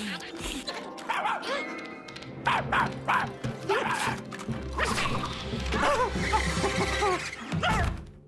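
Cartoon background music with a dog's short barks and yips over it, many quick rising and falling calls, and a few knocks; it fades out near the end.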